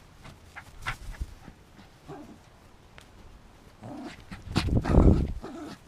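A dog vocalizing in short sounds, loudest about four to five seconds in.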